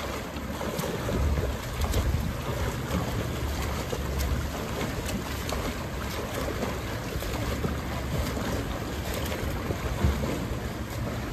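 Water splashing from a swimmer's freestyle arm strokes and kicks, with wind rumbling on the microphone.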